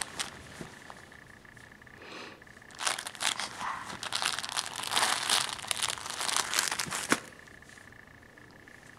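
Soft cloth baby book being grabbed and handled, its crinkly pages crinkling in a dense run of rapid crackles from about three seconds in, stopping abruptly after about four seconds.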